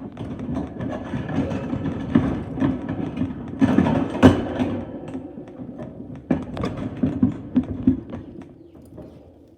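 Toys and ornaments being handled and pulled off a birdcage: a run of clicks, knocks and rattles, the loudest knock about four seconds in and several sharp clicks a little later, dying down near the end.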